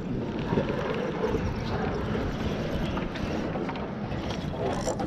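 Wind buffeting the microphone: a steady low rumbling noise with no clear speech.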